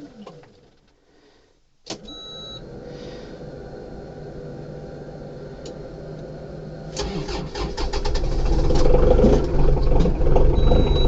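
Cold start of a 2010 New Holland Boomer 3045's Shibaura N844L four-cylinder diesel in freezing weather without a block heater. After a click and a short beep from the dash there is a steady low hum. About seven seconds in, the starter cranks and the engine catches and runs roughly, not happy in the cold.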